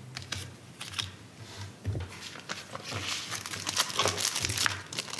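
Thin cellophane packets crinkling and rustling as they are handled, with irregular crackles that grow busier about halfway through.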